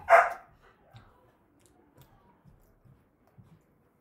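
A brief vocal sound right at the start, then faint soft clicks of chewing gummy candy, several irregular ticks about half a second apart.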